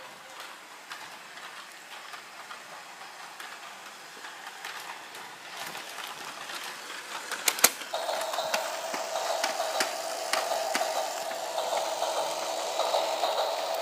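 A train passing: its wheels click rapidly over the rails, growing louder, with a sharp clatter about halfway through. From about eight seconds a steady tone joins the clicking.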